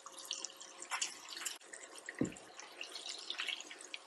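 Hot oil crackling and popping in a pan as pieces of fried chicken are stir-fried with dried chillies, with one dull knock a little past the middle.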